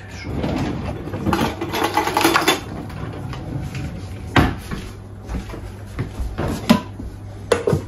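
Kitchen clatter of dishes, pots and utensils being handled: a busy couple of seconds at the start, then a few separate sharp clinks and knocks, the last ones as a slotted spoon stirs a steel pot on the stove.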